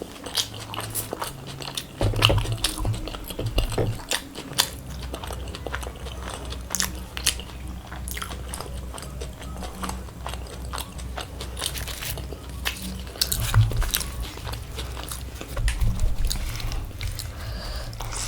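A person eating close to the microphone: chewing and biting food, with many sharp crunchy clicks over a low, rhythmic chewing sound.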